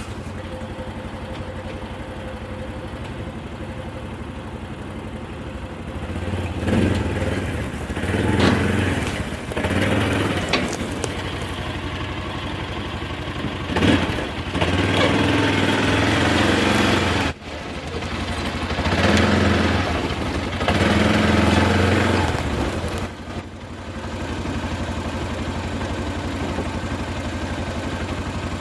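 A motor running steadily, rising in a handful of louder surges lasting from about one to three seconds each.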